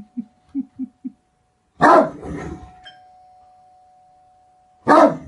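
Great Dane barking: a quick run of about five short, low woofs, then two loud deep barks about three seconds apart. Between the two loud barks a steady ringing tone hangs on and slowly fades.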